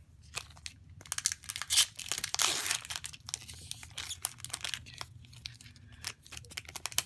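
Foil Pokémon booster pack wrapper crinkling as it is handled and torn open: many sharp crackles, with a longer rip about two and a half seconds in.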